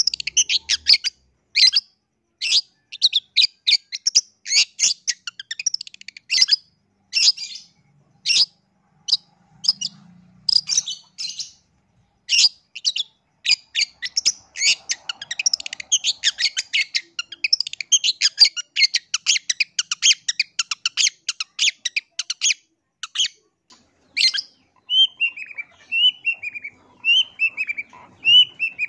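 Long-tailed shrike (cendet) singing: a fast, chattering string of sharp, clicky notes and harsh calls, then near the end a run of short falling whistled notes, each repeated at a regular pace.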